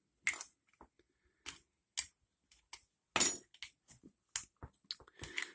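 Scattered small metallic clicks and clinks from handling the just-picked 5-pin dimple bike lock and its picking tools, with a sharper click about two seconds in and another just after three seconds.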